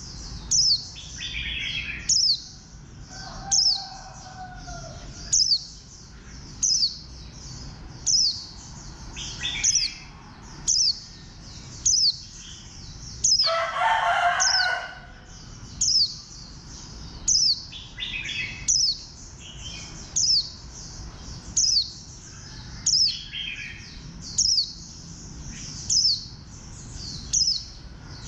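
A white-eye repeats a single thin, high, downward-slurred call note about every second and a half, with softer chirps in between. About halfway through, a louder, rougher call lasts about a second and a half.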